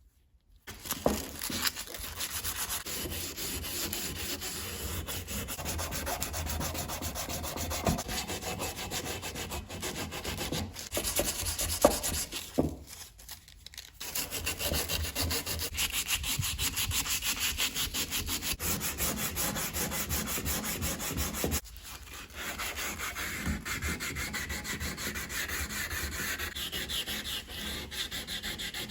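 Hand sanding brass with sandpaper: quick, steady back-and-forth rubbing strokes, with a short pause about halfway through.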